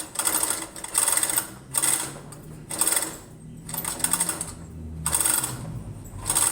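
A chain hoist hauled in repeated pulls, its chain rattling and ratchet clicking fast in bursts about once a second, seven or so strokes in all, as it lifts the engine.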